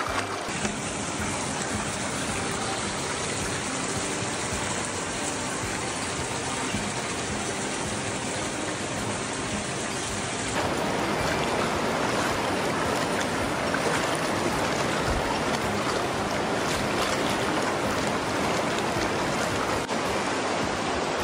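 Flowing river water, a steady rushing noise. About ten seconds in it changes abruptly to a louder, fuller rush.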